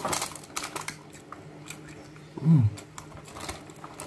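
Spoon scraping and clicking against food in a cardboard takeaway box, with a short falling "mm" from the eater about two and a half seconds in, the loudest sound.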